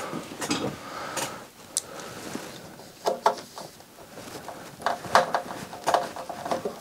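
Screwdriver turning a case screw into the metal cover of a Sony MDS-JA333ES MiniDisc deck. Quiet at first, then from about three seconds in a run of short, irregular metallic clicks as the screw is driven home.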